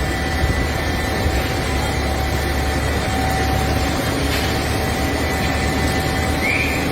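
Heavy diesel engine of a hydra mobile crane running steadily under load, with a thin steady whine above it and the even hiss of heavy rain.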